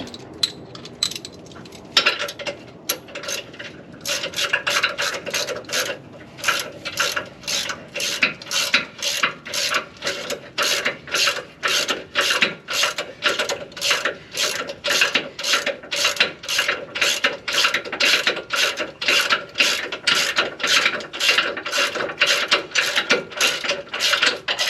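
Hand ratchet wrench clicking as a fastener is run a long way along its thread. A few scattered clicks come first, then steady back-and-forth strokes at about two a second from about four seconds in.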